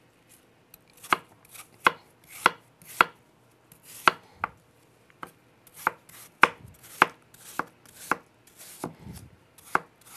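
Chef's knife chopping peeled apple on a wooden cutting board: a run of sharp, irregular knocks, about two a second, starting about a second in.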